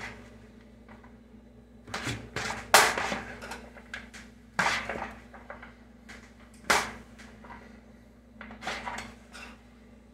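Kitchen utensil clacking and scraping against a dish as rice-and-meat stuffing is scooped, a few sharp knocks and short scrapes a second or two apart, the loudest about three seconds in.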